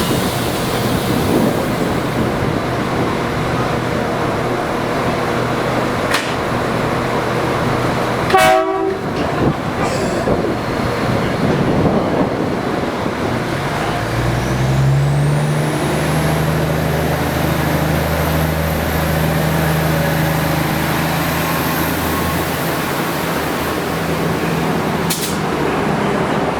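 2600 Class diesel railcar running, with a brief sharp knock about eight seconds in. About halfway through, its engine note rises and holds steady as it powers up, and a high whine climbs alongside it.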